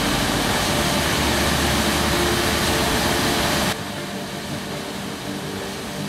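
Waterfall and whitewater rapids rushing: a loud, steady roar of water that drops abruptly to a quieter rush a little past halfway through.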